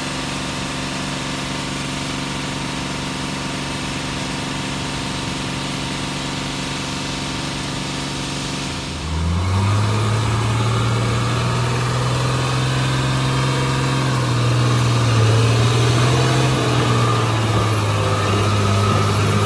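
Tata truck diesel engines running steadily. About nine seconds in the sound switches abruptly to a louder, deeper engine note as a truck pulls through deep mud under load, holding a steady pitch with slight swells.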